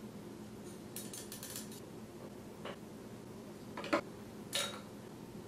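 Light plastic clicks and taps from a fork oil level syringe being worked at the top of a motorcycle fork tube while drawing out excess fork oil: a short rattle of clicks about a second in, then three single clicks, the loudest near four seconds.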